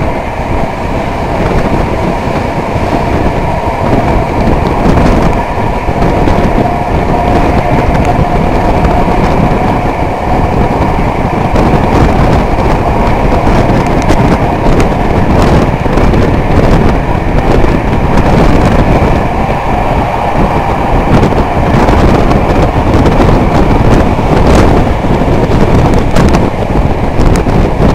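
Passenger train running at speed, heard from an open coach window: a loud, steady rush of wind and running noise, with sharp wheel clicks over the rails scattered through it.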